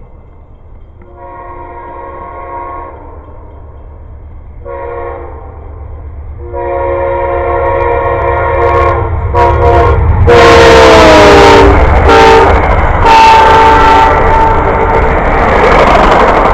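Locomotive air horn sounding several blasts as a train approaches. The last long blast drops in pitch as the train goes by about ten seconds in, under the loud rumble of the passing locomotive and rail cars.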